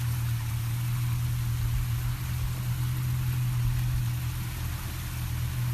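A fishing boat's engine running steadily with an even low hum, over a light hiss of wind and water.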